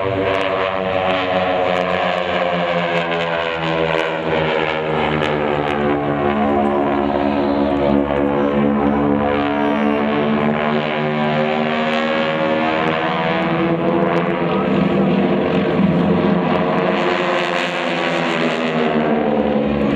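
Several North American T-6 Texans' Pratt & Whitney R-1340 Wasp radial engines and propellers running in formation. The combined engine tone slides slowly in pitch as the aircraft move past.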